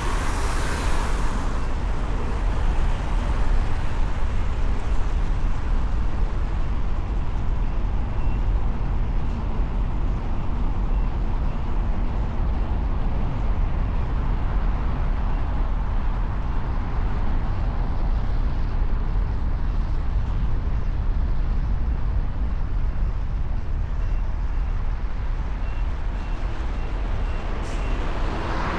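Steady low rumble of city traffic and road noise, with no horns sounding.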